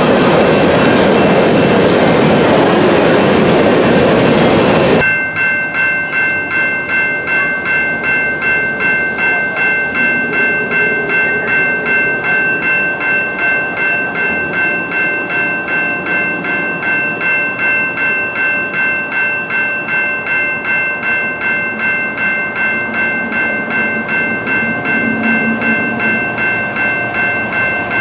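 A train passes loudly over the level crossing, its wheel and car noise cutting off suddenly about five seconds in. Under it and after it, the crossing's warning bell rings steadily at about two to three strikes a second.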